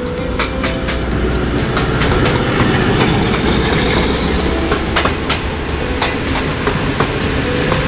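Pakistan Railways ZCU-20 diesel-electric locomotive passing close by at speed, its engine running with a heavy rumble, then a luggage van and coaches following with wheels clacking over the rail joints in quick, irregular clicks.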